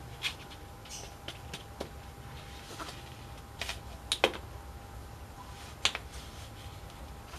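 Hollow plastic ball-pit balls clicking and knocking against each other and the toys as a child handles them in a shallow paddling pool: irregular light taps, with a couple of louder knocks about four and six seconds in.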